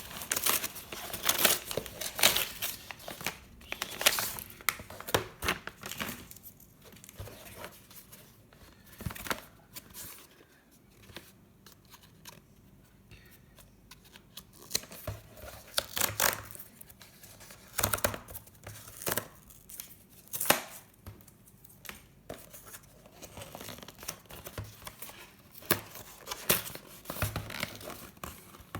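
Phone-case packaging being opened by hand: bursts of tearing and crinkling of paper and plastic wrapping, busy at first, then a quieter stretch, then busy again.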